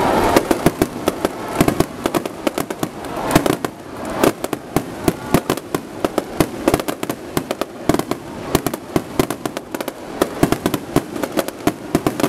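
Aerial fireworks finale: a rapid, irregular barrage of bangs and crackles from many shells bursting at once, with no let-up.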